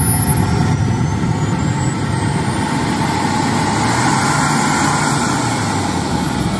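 Model jet turbine engine running: a steady loud rush under a high whine that climbs over the first couple of seconds and falls back again after about five seconds.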